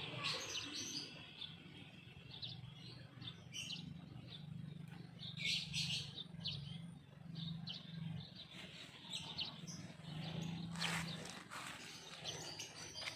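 Faint bird chirps: short, scattered high calls throughout, over a low, on-and-off hum.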